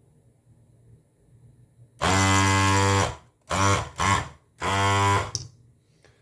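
Desoldering gun's built-in vacuum pump buzzing in bursts as the trigger is pulled, sucking solder out of circuit-board holes. The first burst, about two seconds in, lasts about a second, two short ones follow, then one more of under a second.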